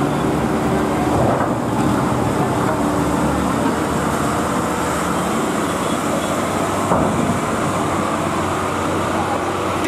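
Diesel engines of a container truck and a coach driving off a ferry onto the landing ramp: a steady low engine rumble, with a single brief knock about seven seconds in.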